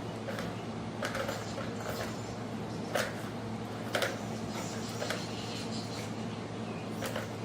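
A toy ball being batted about by a cat: scattered light knocks and taps, about six in all, the sharpest about three and four seconds in, over a steady low hum.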